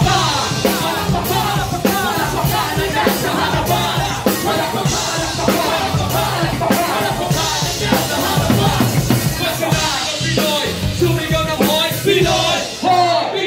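A live band playing loud, driving music with steady drum hits, and a rapper's voice coming over it through the PA.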